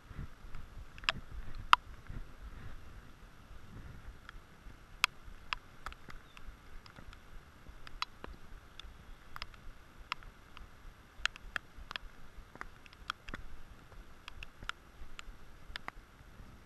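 Rain: raindrops striking the GoPro camera's housing in sharp, irregular ticks, one or two a second, over a faint steady hiss. Low rumbling handling noise runs through the first few seconds as the fly line is cast.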